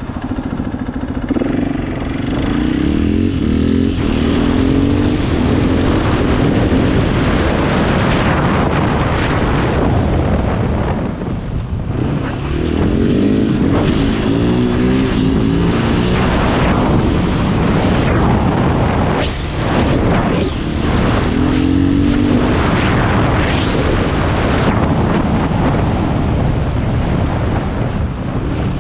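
KTM 500 EXC's single-cylinder four-stroke engine running on the move, its pitch climbing in several sweeps as the bike accelerates, over a steady rushing noise.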